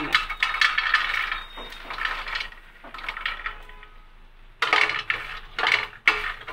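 Puffed lotus seeds (phool makhana) poured from a plate into a hot metal kadhai with a little ghee, rattling and pattering against the pan for a couple of seconds. From about four and a half seconds in, a spatula clacks and scrapes against the kadhai as the seeds are stirred to roast.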